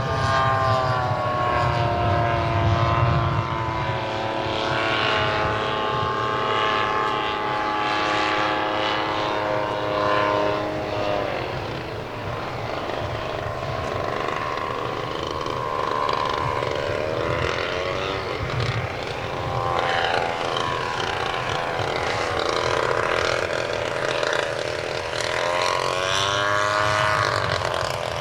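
Engine and propeller of a large radio-controlled De Havilland DH.82A Tiger Moth model in flight, its pitch sliding down and rising again several times as it passes and changes throttle.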